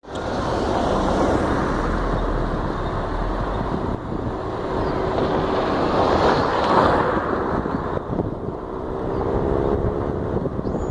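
Road traffic noise: a motor vehicle running past on a street, loudest about six to seven seconds in, with a steady engine hum near the end.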